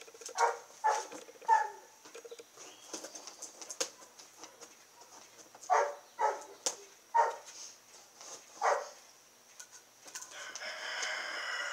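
Chickens calling: a string of short squawks and clucks, then a long rooster crow starting near the end.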